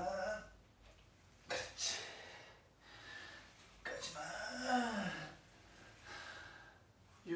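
A man breathing hard under strain during ab-wheel rollouts: sharp breaths about one and a half seconds in, then a strained groan that falls in pitch about four seconds in.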